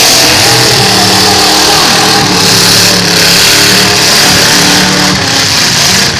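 Several full-size demolition derby cars' engines running and revving at once, loud and continuous, their pitches rising and falling against each other.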